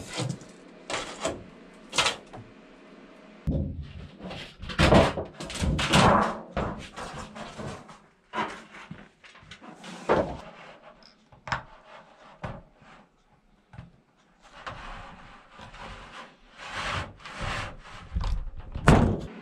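Thin embossed aluminum jacketing sheet being handled and laid on a wooden bench, flexing and rustling with knocks and clatters, then cut with tin snips near the end.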